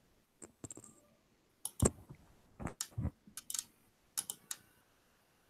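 Computer keyboard keys and clicks tapped in irregular clusters, a few with a heavier thump, stopping near the end.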